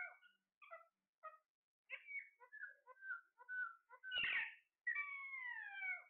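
Caged green parakeets calling: a run of short chirps, a harsh squawk about four seconds in, then a long whistled call falling in pitch about five seconds in.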